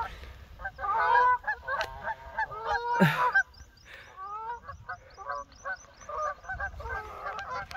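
A group of Canada geese honking over and over as they squabble and chase one another across the water. The honking is loudest about one and three seconds in, then carries on more quietly.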